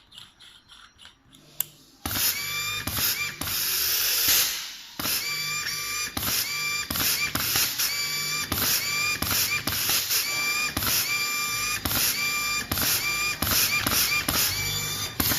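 FFX-M12 pneumatic tool running on compressed air, just reassembled with greased O-rings: a hiss of air with a steady whine, coming in short repeated bursts about two a second, starting about two seconds in after a few faint clicks.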